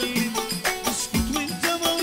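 Instrumental Middle Eastern dance music with a fast, steady drum beat and a melody line that slides in pitch.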